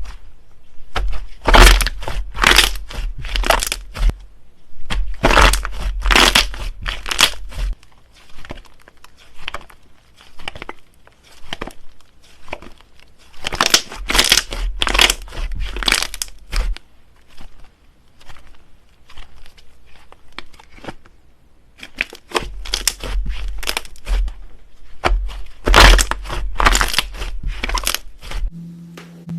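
Slime being squished and kneaded by hand, giving dense bursts of crackling and popping in four bouts, with quieter scattered clicks between them.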